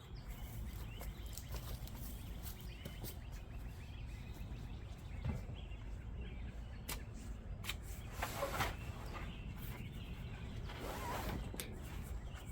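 Outdoor background noise: a steady low rumble with scattered light clicks and a few brief rustling swishes, about two-thirds of the way through and again near the end.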